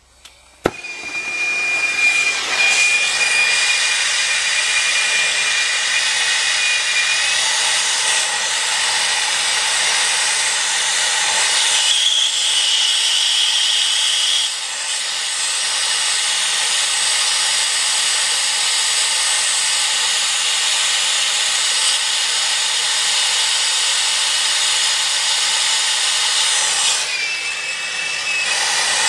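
Brazing torch flame hissing steadily while it heats copper refrigerant pipe joints for brazing. It catches suddenly about a second in, with a faint thin whistle over the hiss now and then.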